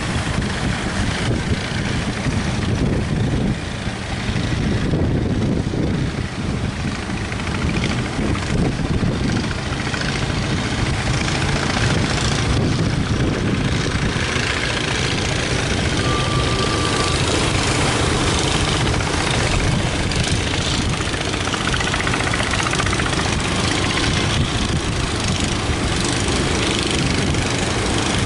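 Boat engine running steadily, mixed with wind buffeting the microphone and the rush of breaking surf.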